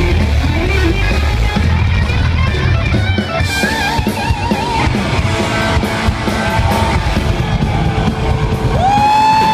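Rock band playing live: electric guitar lead over bass and drums, with wavering vibrato lines in the middle and a long sustained bent note starting near the end.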